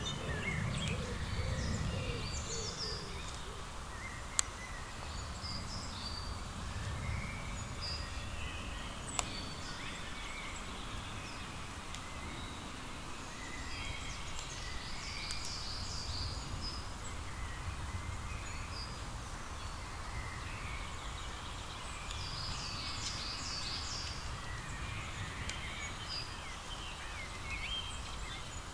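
Outdoor ambience of several birds calling and chirping over a steady low rumble, with two sharp clicks, one about four seconds in and one about nine seconds in.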